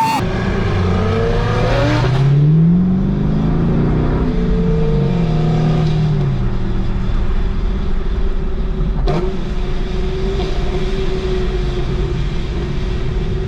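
Car engine revving: its pitch climbs, winds back down, then holds steady, with a single sharp click about nine seconds in.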